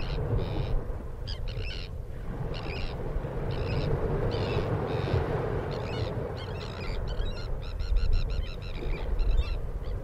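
Bird calling in short, repeated pitched notes, roughly one a second, then quicker and more tightly packed near the end, over a steady low rumble.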